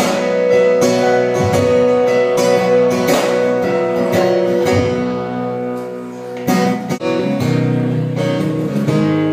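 Acoustic guitar strumming chords with no singing. The level dips briefly about six seconds in, then the strumming picks up again on new chords.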